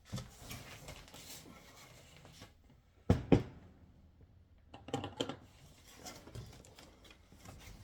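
Unpacking noises: cardboard packaging being handled and lifted, with soft rustling and scraping, two sharp knocks about three seconds in, and a few more knocks around five seconds.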